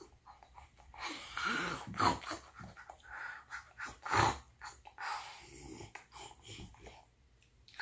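A small child making pretend eating noises with a wooden toy sandwich held against her mouth: a run of irregular munching and breathing sounds starting about a second in, a few of them louder.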